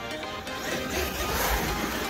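Background music with a rhythmic pulse.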